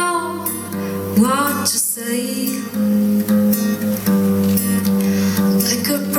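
Music: a song played on acoustic guitar, strummed steadily, with a voice singing briefly about a second in.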